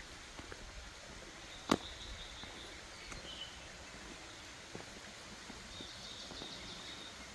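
Small birds calling in short, high, rapid phrases, once about a second and a half in and again near the end, over a steady faint hiss. A single sharp click, the loudest sound, comes just under two seconds in.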